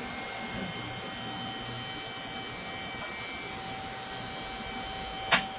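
Electric-hydraulic car lift's motor running steadily as it raises the car. One sharp metallic clack comes near the end.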